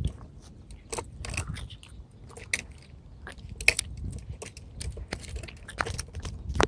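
Handling noise: irregular clicks, knocks and crunches of hard objects, with a low rumble underneath.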